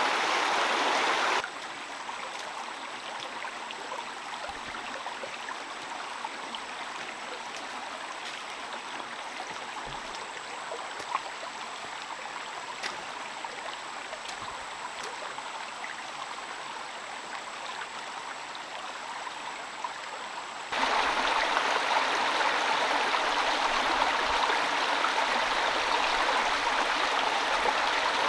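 Steady rushing water noise, the kind heavy rain makes. It drops sharply in level about a second in, then jumps back up about 21 seconds in.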